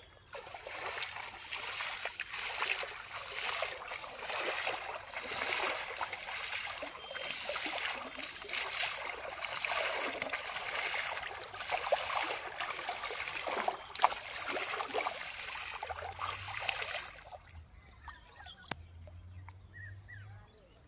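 Hands splashing and sloshing shallow river water in repeated surges, with a few sharp slaps. The splashing stops about three-quarters of the way through.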